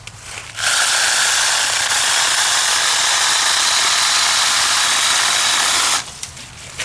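Kimo 6-inch cordless mini chainsaw running for about five seconds, its electric motor and chain giving a steady high whine that starts and stops abruptly.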